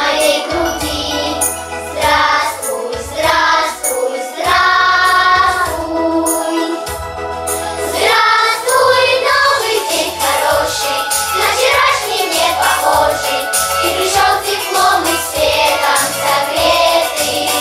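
Children's choir singing a song over instrumental accompaniment with a steady beat and a bass line.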